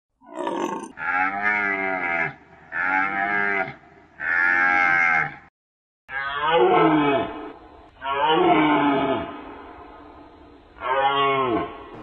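A deer stag calling in the rut: about seven drawn-out, moo-like calls of a second or so each, with a short break midway; the later calls slide down in pitch.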